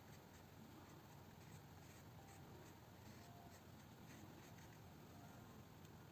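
Near silence: faint, irregular strokes of a brush on watercolour paper over a steady low hum.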